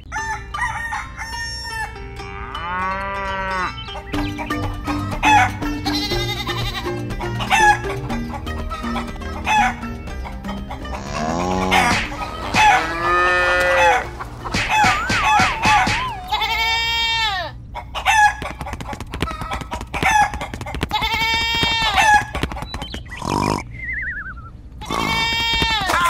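Farm animal calls, roosters crowing and goats and sheep bleating, one after another over light background music.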